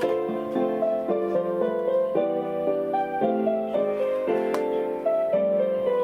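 Citizen Sound Pro R412 radio-controlled alarm clock playing its 32-note polyphonic melody, a piano-like tune with chords, through the clock's small speaker.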